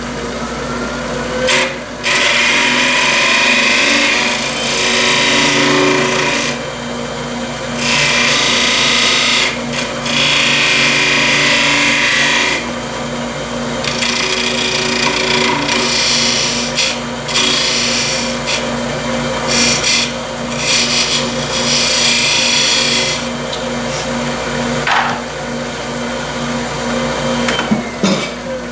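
Wood lathe running with a steady hum while a turning tool cuts a spinning curly maple blank in repeated passes of a few seconds each, tapering and blending its edge. A few short knocks come near the start and near the end.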